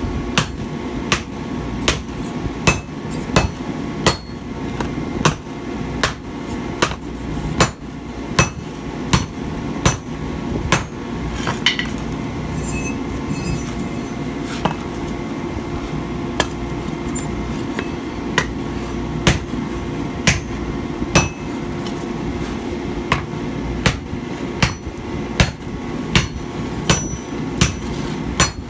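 Hand hammer blows on a glowing hot steel plate over a swage block, a little faster than one a second. The blows stop for a few seconds around the middle, then start again. A steady low hum runs underneath.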